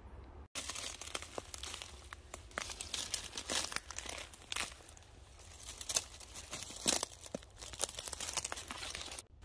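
Footsteps crunching and crinkling through dry leaf litter and brush, irregular and uneven.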